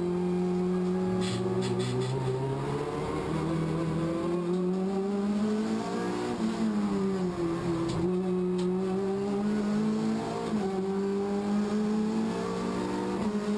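Race car engine heard from inside the cockpit, running hard at speed. Its pitch climbs steadily, dips and rises again about six to eight seconds in, then climbs on with a short step in pitch near the end.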